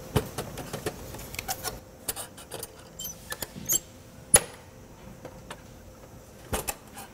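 Metal clicks and clanks from a rigid sterilization container for surgical instruments as its lid is handled and its end latches are worked shut: a string of short sharp clicks, the loudest about four seconds in.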